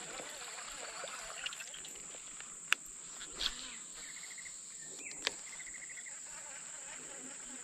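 Steady high-pitched drone of insects, with two short rapid trills in the middle. There are two sharp clicks, one a little before the midpoint and one about two-thirds through, with a brief rustle between them.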